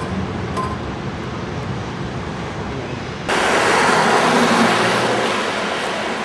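A low steady rumble of a train on the track. About three seconds in it cuts abruptly to louder street traffic: a city bus's engine running as it pulls away among cars.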